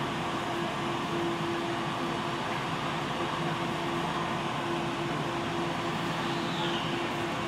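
Steady interior noise inside a Tokyo Metro Ginza Line subway car: an even rumble with a constant low hum.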